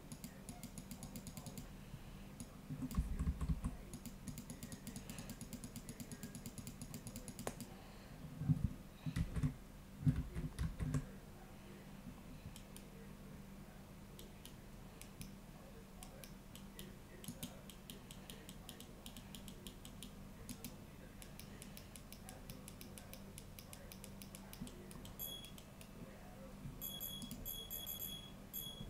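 Quick runs of computer mouse and keyboard clicks over a steady low hum, with a few dull low thumps about 3 seconds and 8 to 11 seconds in.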